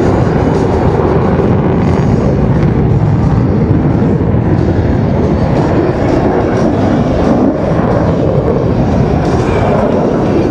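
Jet engine noise from US Navy Blue Angels F/A-18 Super Hornets flying a display, a loud, steady deep rumble that holds at the same level throughout.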